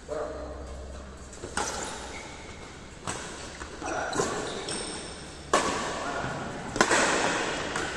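Badminton rally: sharp cracks of racket strings hitting the shuttlecock, four in all about one and a half to two and a half seconds apart, each ringing on in a large echoing hall.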